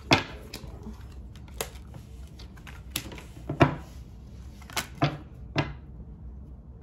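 Tarot deck being shuffled by hand and cards laid down on a table: about eight sharp, irregular card snaps and taps, stopping near the end.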